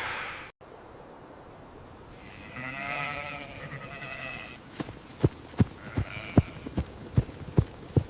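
A sheep bleats, one wavering call of about two seconds, with a fainter call a little later. From about halfway through, sharp footsteps thud in a quick, even run of about two or three a second.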